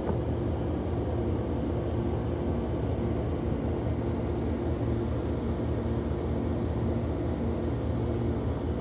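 Truck engine idling: a steady low drone that does not change.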